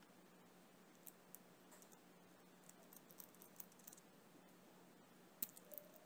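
Faint, scattered small metal clicks and ticks of a wing nut being turned by hand onto the threaded neck of a small CO2 airgun cartridge, with a couple of sharper clicks about five and a half seconds in.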